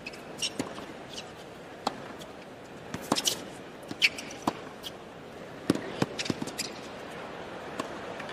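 Tennis rally on a hard court: a string of sharp, short pops from racket strings striking the ball and the ball bouncing on the court, at uneven intervals, over a low hum of a hushed stadium crowd.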